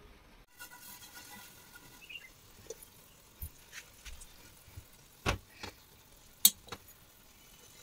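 Perforated aluminium steamer tray knocking and clinking as it is handled and dough is set on it: a few short sharp metallic knocks, the two loudest about five and six and a half seconds in.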